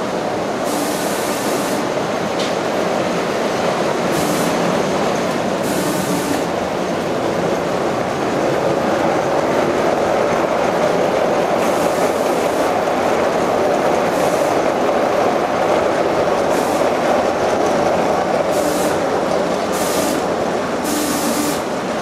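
Gauge 1 model train running on the layout's track: a steady rumble of wheels on rails, louder in the middle as the train passes close by, with occasional brief clicks.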